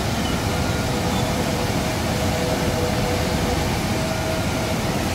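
Muddy flash-flood river water rushing and churning over a weir, a steady loud rush of water.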